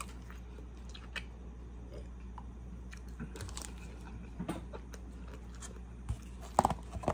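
A person chewing a mouthful of chicken taco with the mouth closed, in soft, wet mouth sounds. Near the end come a few louder clicks and crinkles of a clear plastic takeout container being handled.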